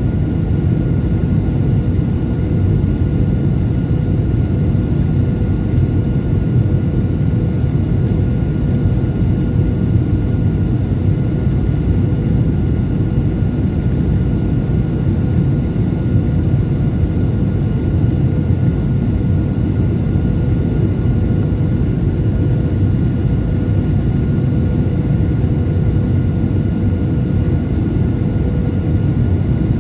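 Jet airliner cabin noise heard from a seat over the wing during descent toward landing: a steady, loud low roar of engines and airflow with a few faint constant whine tones above it, unchanging throughout.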